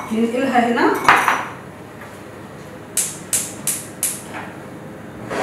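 A metal whisk tapped four times against a metal cooking pot: quick, sharp, ringing clinks, a little over one second in all, about three seconds in, after a brief scrape in the pot.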